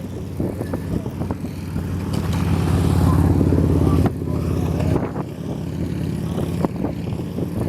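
A motor vehicle's engine running close by on a city street, growing louder and then dropping off suddenly about four seconds in, with its lower hum going on after.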